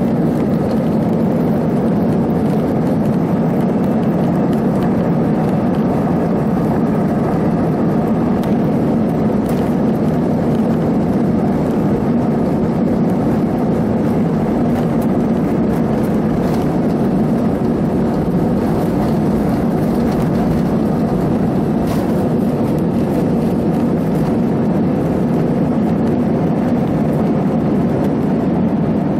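Jet airliner's engines at takeoff thrust, heard from inside the cabin: a steady, loud rushing noise through the takeoff roll and liftoff, with no break or change in level.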